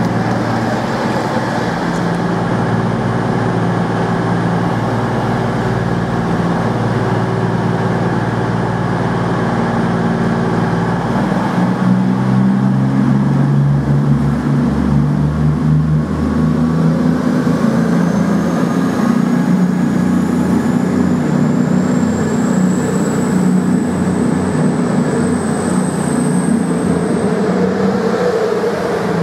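Class 221 Voyager diesel-electric unit's underfloor Cummins diesel engines running as the train moves along the platform. The engine note grows louder about twelve seconds in. A faint high whine rises in pitch through the second half.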